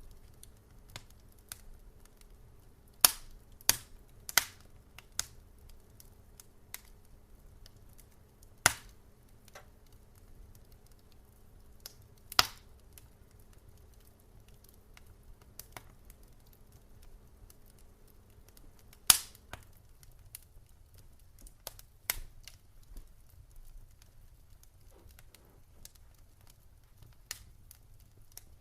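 Wood fire crackling: sharp, irregular pops and snaps, a few of them loud, with quiet gaps between. A faint low hum underneath stops about two-thirds of the way through.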